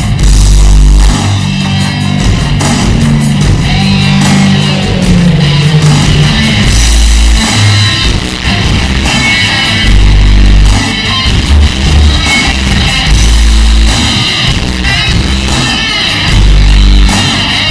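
Hard rock wrestling entrance theme with electric guitar, driven by heavy, bass-boosted low hits.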